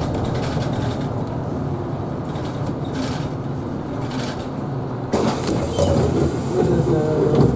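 Isuzu Erga Hybrid city bus running, with a steady drivetrain hum and road noise heard from inside the bus. About five seconds in, a louder rushing noise comes in for a couple of seconds.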